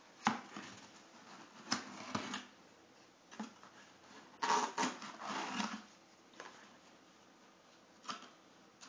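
A cardboard pet carrier being opened by hand: stiff cardboard flaps and handle tabs scraping and popping as they are worked loose, in a few separate sharp bursts with a longer rustling stretch in the middle.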